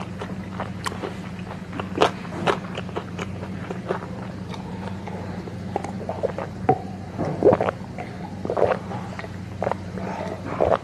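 Close-up eating sounds: chewing and small mouth clicks, then gulps of a drink swallowed from a glass in the second half, over a steady low hum.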